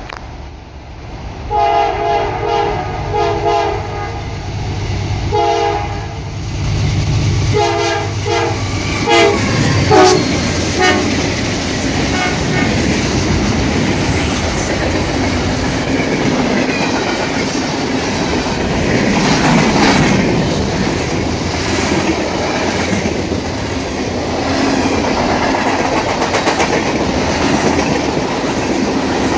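Diesel freight locomotive's air horn blowing a string of about eight short and longer blasts in the first ten seconds or so. The mixed freight train then rolls past at speed, its wheels clattering steadily over the rail joints.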